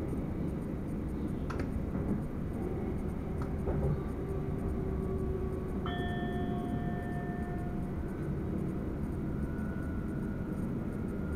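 Passenger train running, heard from the driver's cab: a steady low rumble with a few sharp clicks. About six seconds in, a ringing sound of several steady pitches sets in abruptly and holds for under two seconds, and a fainter high whine follows near the end.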